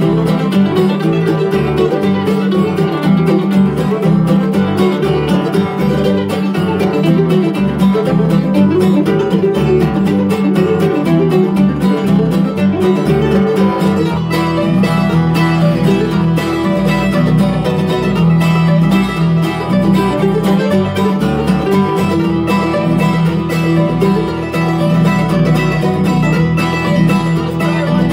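Acoustic bluegrass string band playing an instrumental tune, with mandolins, guitar and banjo picking together and no singing.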